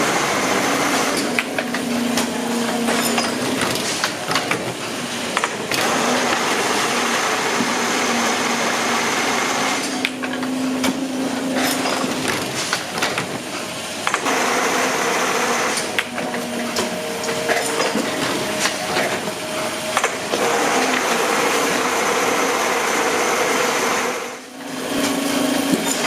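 Steady mechanical whirring with scattered sharp clicks and taps. It drops away briefly near the end.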